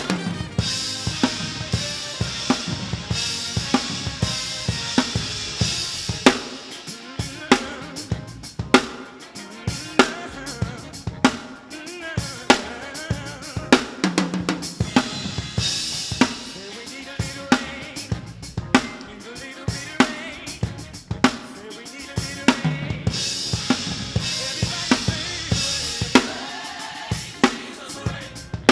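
Drum kit played along with a recorded song: bass drum, snare and cymbals in a steady groove, coming in right at the start over the backing music, with stretches of cymbal wash.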